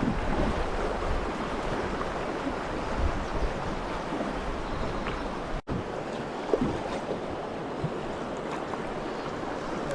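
River current rushing and splashing around a drifting boat, a steady noisy wash with some wind rumble on the microphone.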